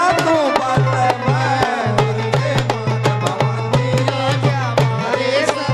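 Live devotional bhajan music played through a PA: a male voice singing a winding melody over a dholak drum beating a steady rhythm of about two strokes a second.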